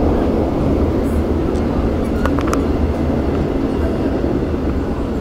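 Seoul Metro Line 2 subway train running, a steady low rumble heard from inside the carriage, with a few short clicks a little over two seconds in.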